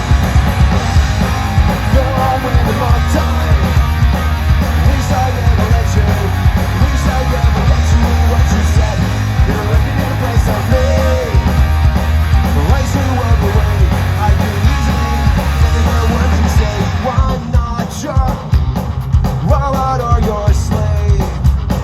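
Punk rock band playing live, loud, with distorted electric guitars, bass, drums and a singing lead vocal. About three-quarters of the way through, the heavy bass and drums thin out for a few seconds while the singing carries on.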